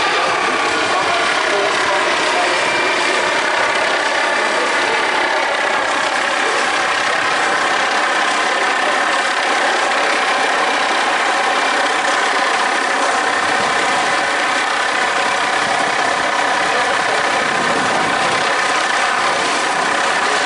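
Four-blade military helicopter flying low overhead: a steady turbine whine of several tones over the rotor noise.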